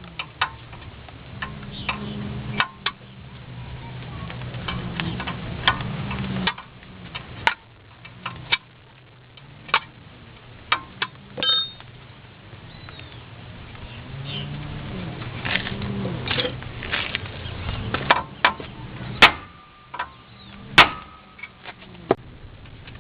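Hand tools at work on a pickup's front axle and hub: irregular sharp metallic clicks and clinks, loudest twice near the end, over a low hum.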